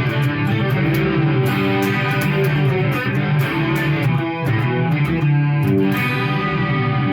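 Electric guitar played through a Marshall MG100HFX amplifier head, a continuous riff of chords and single notes at a loud, even level.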